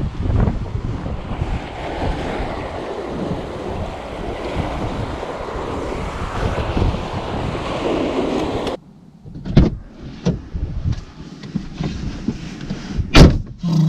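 Strong wind buffeting the microphone over the rush of surf, a dense steady noise. It cuts off abruptly about two-thirds of the way through, leaving a quieter stretch with a few sharp knocks, the loudest near the end.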